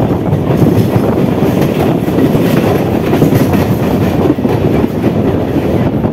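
Three-phase MEMU electric train running at speed: a loud, steady rumble of steel wheels on rail with irregular clickety-clack clatter over rail joints and pointwork.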